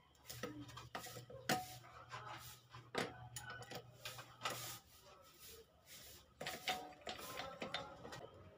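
Light metal clicks and knocks of small steel parts as the starter idle gears and bendix are fitted by hand into a Kawasaki Fury 125 engine's crankcase, with a faint low hum that stops about halfway through.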